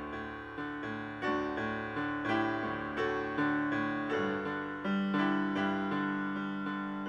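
Solo piano music: a slow, gentle melody of single notes and chords struck about once a second, each ringing and fading before the next.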